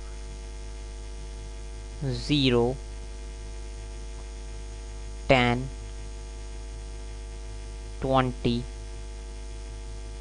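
Steady electrical mains hum with a ladder of overtones, running under the recording, interrupted by a few brief voice sounds about two, five and eight seconds in.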